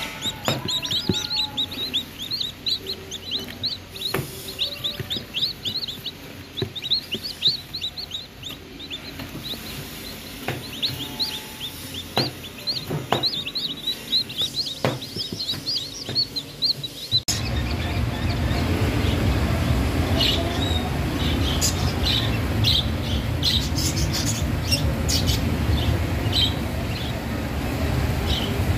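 Newly hatched chicks peeping over and over, many short high chirps. About 17 seconds in, this cuts to a louder steady low rumble with lovebirds making short sharp chirps over it.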